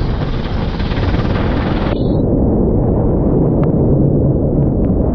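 Racing kart engine running under a heavy, steady low rumble. The upper hiss cuts off abruptly about two seconds in.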